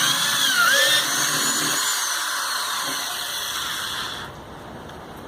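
Electric drill drilling out a steel pop rivet. Its whine dips in pitch about half a second in as the bit bites, then rises again, and the drill stops about four seconds in.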